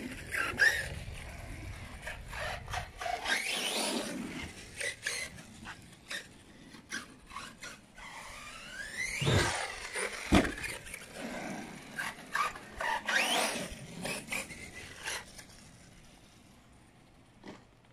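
Arrma Outcast 6S RC truck's brushless motor whining up and falling back in repeated throttle bursts, with tyres scrabbling over grass and patio and several sharp knocks and heavy thumps as the truck bumps and lands. The sound dies down near the end.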